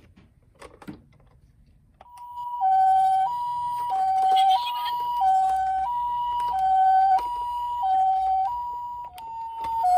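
Japanese ambulance siren in its two-tone high-low "pee-paw" pattern. It comes on about two seconds in after a few faint clicks and switches between the two notes about every two-thirds of a second.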